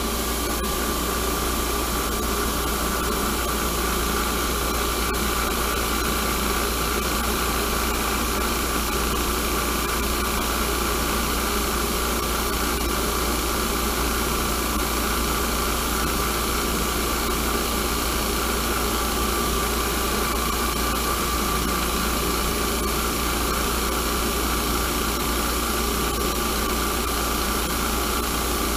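Harbor Freight Warrior bench grinder running steadily with a high whine, a small piece of steel held against its wheel to grind an angle on it.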